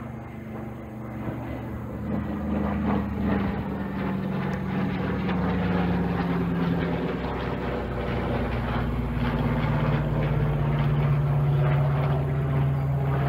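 Propeller engines of a B-25 Mitchell WWII bomber, its twin radial engines, droning as it flies overhead. The drone grows louder over the first few seconds, and its pitch drops about halfway through as the plane passes.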